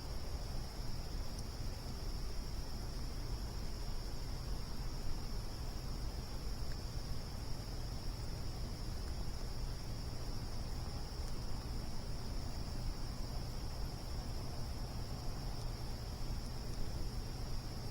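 A steady, unbroken trill of crickets over the low, even rush of a campfire burning, with a few faint pops from the fire.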